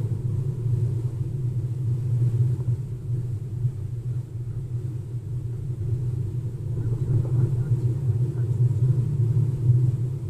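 Steady low road rumble inside the cabin of a Tesla electric car driving along a street: tyre and road noise, with no engine sound.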